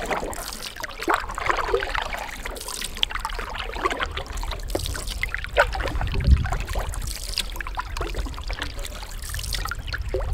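Canoe being paddled: water trickling and dripping off the paddles and splashing along the hull, with a low thump about six seconds in.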